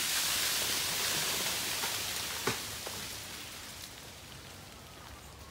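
Ice breaking off ice-coated tree branches and falling through them in a hissing, pattering shower that fades over a few seconds. Scattered sharp ticks run through it, with one louder crack about two and a half seconds in.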